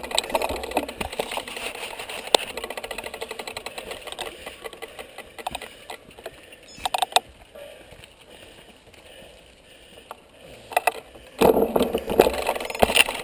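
Mountain bikes being pushed uphill on a dirt forest trail: the bikes clicking and rattling with footsteps on the ground, a few sharper knocks about seven seconds in, and louder clatter near the end.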